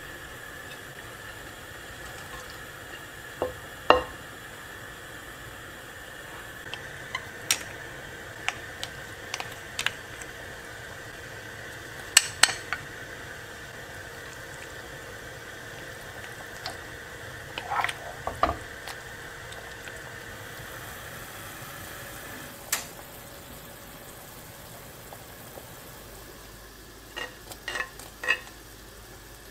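A pot of duck soup simmering with a steady hiss, broken by sharp clinks of a plate and spoon knocking on the pot as ingredients are tipped in. The hiss thins out about three quarters of the way through, and a quick run of clinks comes near the end.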